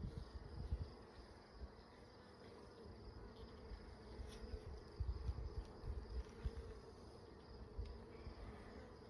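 Honeybee colony buzzing in an open hive: a steady, fairly faint hum, with irregular low rumbles underneath.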